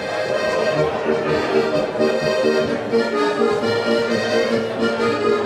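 Steirische Harmonika (diatonic button accordion) playing a folk tune, with held reedy chords over a regular pulse of short bass notes.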